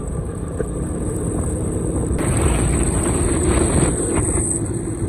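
Steady wind and road rumble from a moving car, growing fuller about two seconds in.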